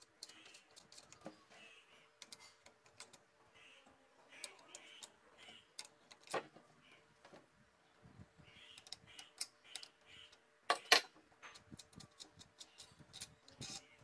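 Light, scattered metallic clicks and taps as a bolt is unscrewed by hand from the steel mounting bracket of a washing machine motor, with a sharper double click about eleven seconds in.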